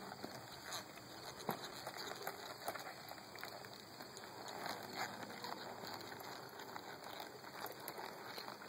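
Quarter horse walking on soft dirt: faint, irregular hoof falls over a steady outdoor hiss.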